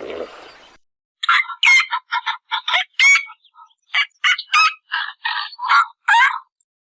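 Fowl-like birds calling: a rapid series of around eighteen short, gliding calls, starting about a second in and running for about five seconds. Before that, the tail of a low animal roar fades out.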